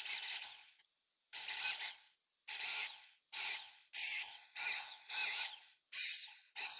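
Drill press bit cutting into a spalted maple slab, making a series of short plunges. Each plunge is a brief burst of high cutting noise, about eight in all, with quiet between them; the sound is high-pitched and chirpy, as in sped-up footage.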